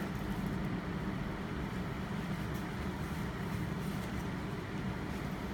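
Steady low-pitched background hum, with no distinct separate sounds.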